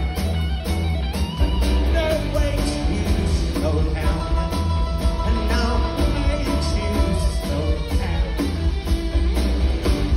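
Live rock band playing a steady driving beat on drums, bass, electric guitar and keyboards, with a man singing, heard from the audience in a concert hall.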